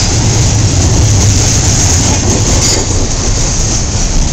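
Double-stack intermodal freight train's well cars rolling past close by: a steady, loud rumble of steel wheels on the rails.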